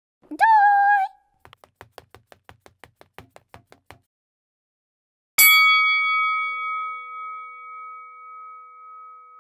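A short high-pitched squeal, then a quick run of light clicks at about six a second. About five seconds in comes a single strike on a boxing-ring bell, which rings on with a long, slowly fading tone.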